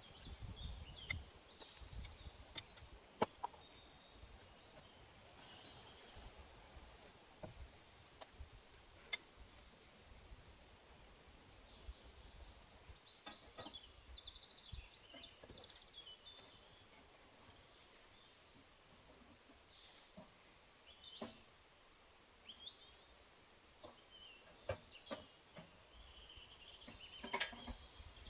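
Quiet outdoor ambience with small birds chirping on and off in short high notes, broken by scattered sharp clicks and knocks. A low rumble comes in the first couple of seconds.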